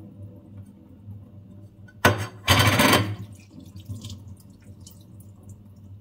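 Kitchen tap water rushing into a stainless steel sink and over hands for about a second, starting about two seconds in, followed by quieter dripping and rinsing.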